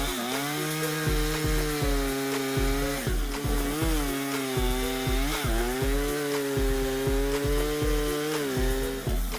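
Echo two-stroke chainsaw running at high revs through wood, its pitch dipping and recovering repeatedly as it bogs in the cut. Background music with a steady thumping beat plays under it.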